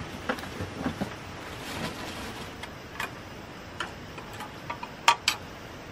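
Light clicks and taps of a mosquito-coil box being handled, its mesh insert and lid knocking together. Two sharper clicks come close together near the end, over a steady background hiss.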